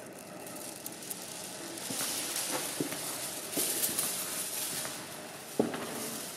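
Close, hurried breathing of a person on the move, with scattered footsteps; the breath noise swells from about two seconds in and a sharper step lands near the end.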